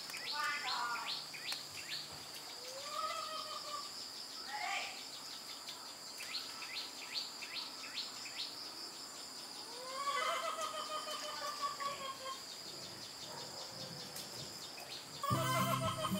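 Birds calling repeatedly, with short chirps and a few longer rising-and-falling calls, over a steady high drone of insects. Background music comes in about a second before the end.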